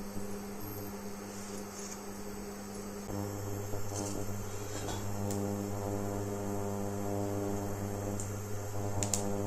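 Steady electrical hum with a constant low pitch, which becomes fuller about three seconds in as more steady tones join it, with a faint click near the end.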